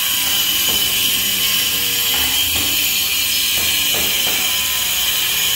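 A power tool running steadily with a high-pitched whine and hiss, with a few faint knocks.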